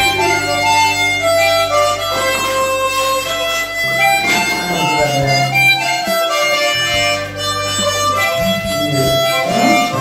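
Background music: a melody of held notes moving from pitch to pitch over a sustained low bass note.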